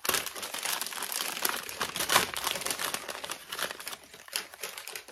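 Package wrapping crinkling and rustling continuously as hands unwrap a small package, loudest about two seconds in.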